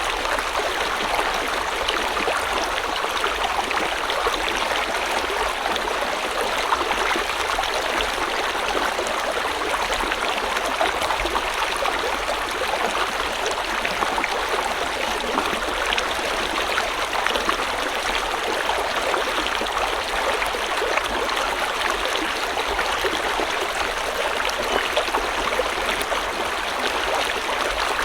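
River water flowing over stones: a steady rushing and babbling stream with fine splashing detail, unchanging throughout.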